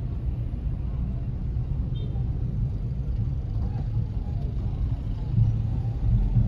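Low, steady rumble of engines in slow, crowded street traffic full of motorbikes. It grows a little louder near the end.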